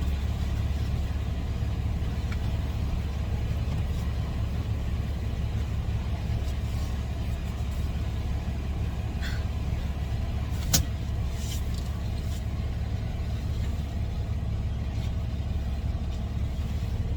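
An engine idling, a steady low drone, with a sharp knock about eleven seconds in and a few fainter clicks.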